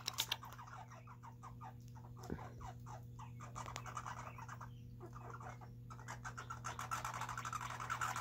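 Red squirrels gnawing and crunching peanuts and sunflower seeds: a faint run of rapid small clicks and crackles, with a few sharper cracks right at the start and a denser, steadier crunching in the last couple of seconds.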